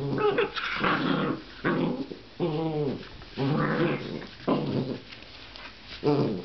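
Young puppies growling and whimpering in a run of about six short, pitched calls.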